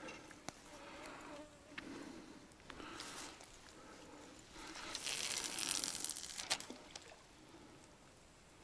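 A flying insect buzzing close by, its pitch wavering, with faint clicks and a short rustling hiss about five seconds in.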